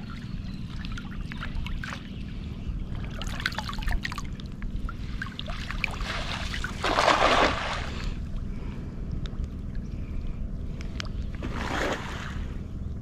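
Water splashing, loudest in one longer splash about seven seconds in and a shorter one near the end, with small clicks and splashes between, over a steady low rumble.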